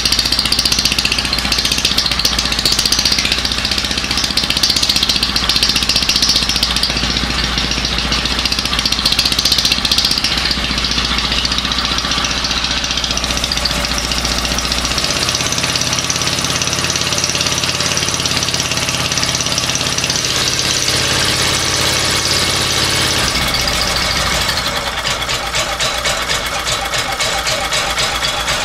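Small portable generator engine running steadily, its sound changing about halfway through and again near the end.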